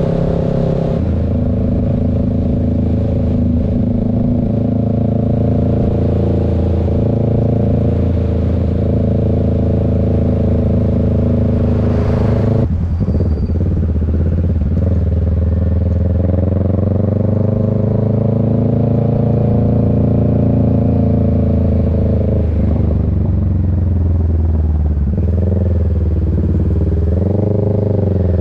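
Motorcycle engine running under way at a steady cruising speed. About twelve seconds in the engine pitch drops suddenly, then rises and falls again with changes in speed, wavering up and down near the end.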